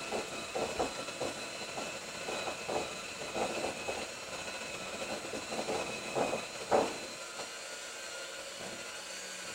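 Electric hand mixer running steadily on its third speed, beating a mixture in a bowl, with irregular knocks throughout, the loudest about seven seconds in.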